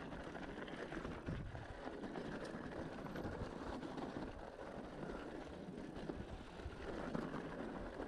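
Cannondale mountain bike rolling down a rough dirt trail: steady tyre noise over loose ground with a constant clatter of small rattles and clicks from the bike.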